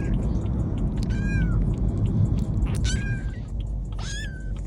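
Domestic cat meowing three times, short high meows, the first about a second in, over a steady low rumble.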